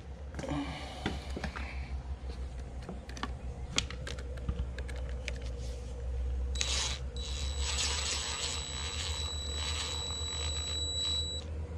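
Power drill running steadily with a high whine for about five seconds in the second half, driving a bolt snug. Before it, a scatter of light clicks and taps from the bolt and tool being handled.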